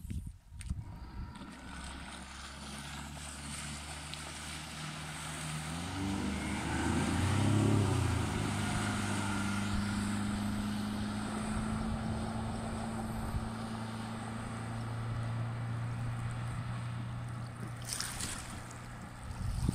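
Outboard motor running at speed. Its pitch and loudness rise about six to eight seconds in, then hold steady, over a hiss of wind and water spray.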